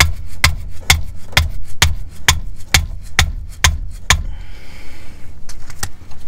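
A mallet striking a wrench fitted to the rear differential plug of a Mercedes C300 (W205), about two blows a second, to break the tight plug loose. The blows stop about four seconds in, and two light clicks follow near the end.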